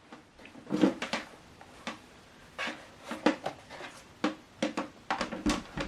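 Irregular light clicks and knocks of hands handling an HDMI cable and the plastic soundbar at its rear HDMI eARC port.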